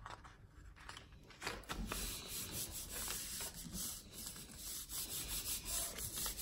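Hands rubbing over the back of a sheet of paper laid on a gel printing plate, a steady papery swishing in repeated strokes that starts about a second and a half in. The rubbing presses the paper onto the painted plate to pull a monoprint.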